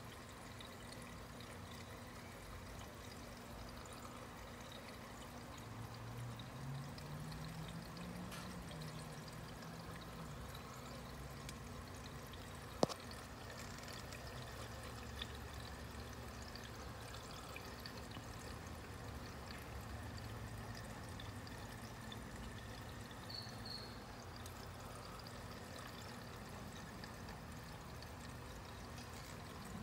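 Aquarium water trickling steadily under a low hum, with one sharp click about thirteen seconds in.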